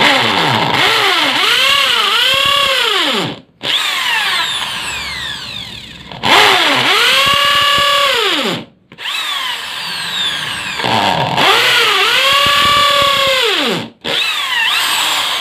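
INGCO ID6808 680-watt impact drill in hammer mode boring into a concrete floor with a 6 mm masonry bit. The motor whine rises, holds and falls as the trigger is squeezed and eased, with brief stops about 3.5 s, 9 s and 14 s in.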